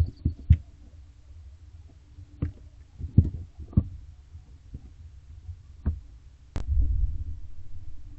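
Barn owlets moving about inside a wooden nest box: irregular dull thumps and knocks on the box floor and walls, over a steady low hum. About six and a half seconds in, a sharp click is followed by a louder low rumble of scuffling.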